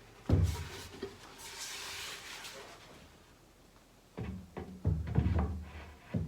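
A wooden cabinet door being handled and set onto its hinge blocks. There is a thump shortly after the start, then a soft rustle, then several knocks of wood against wood a little after four seconds in.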